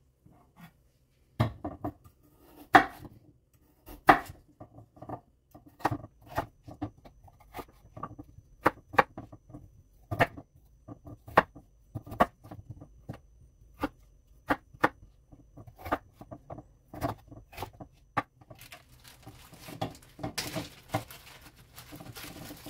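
Kitchen knife chopping peeled raw potatoes on a wooden cutting board: irregular sharp knocks of the blade through the potato onto the board, about one or two a second. Near the end, a plastic bag crinkles.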